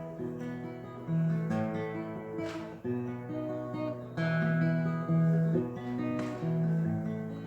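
Acoustic guitar strumming a steady series of chords, changing about once a second: the instrumental introduction to a hymn, before the singing comes in.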